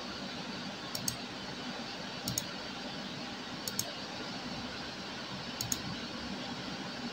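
Steady background hiss with four faint double clicks spread through it.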